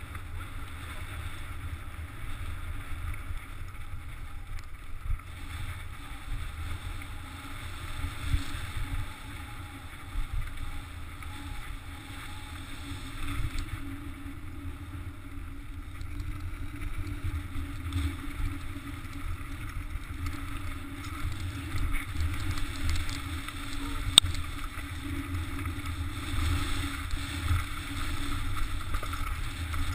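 Mountain bike descending a loose, rocky trail: tyres rolling over stones in a steady low rumble, with wind buffeting the microphone and scattered clicks and knocks from the bike, one sharp knock near the end.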